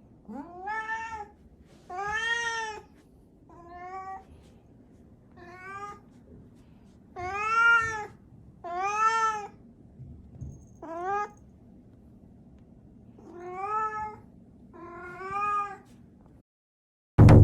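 Domestic cat meowing about ten times, each meow rising then falling in pitch, with pauses of a second or so between them. Just before the end a loud, low tone comes in suddenly and starts to die away.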